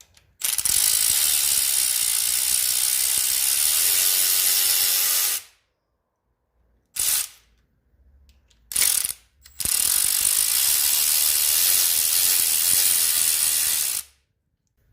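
Ratchet running out the bolts of the Coyote's passenger-side timing chain tensioner: a long, steady run of rapid ratcheting clicks for about five seconds, two short bursts, then another run of about four seconds.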